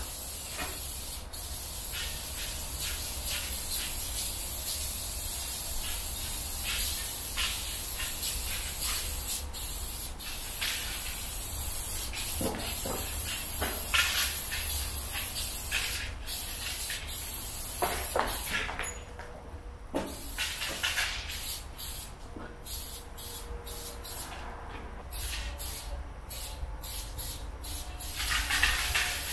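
Aerosol spray-paint can hissing as red fill is sprayed onto the wall: long, nearly unbroken strokes in the first half, then shorter bursts with brief breaks between them.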